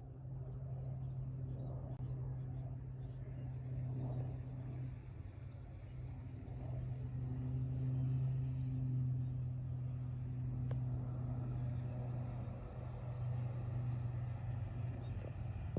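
Distant aircraft engines giving a steady low drone that swells a little around the middle.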